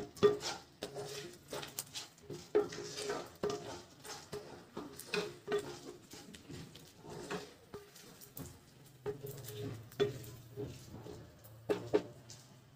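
Wooden spatula stirring diced carrots, onion and chana dal in a non-stick kadai, scraping and knocking against the pan in irregular strokes.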